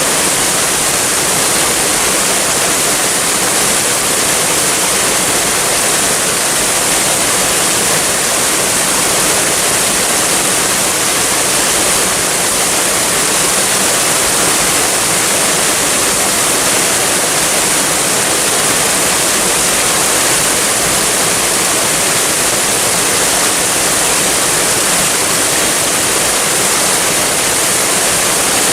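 Waterfall: a steady, unbroken rush of falling water, even in level throughout, with a bright hiss on top.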